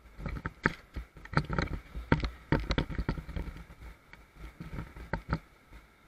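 Irregular knocks and thumps over a low rumble, picked up by a camera riding on an inflatable raft on a fast river.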